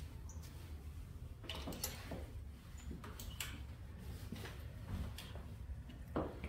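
Quiet room with a steady low hum and a few scattered light clicks and taps.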